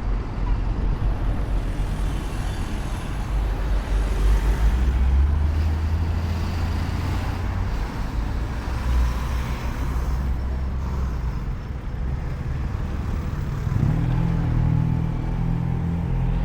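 Road traffic: motor vehicle engines running close by with a low, steady hum. A second, higher engine note comes in near the end.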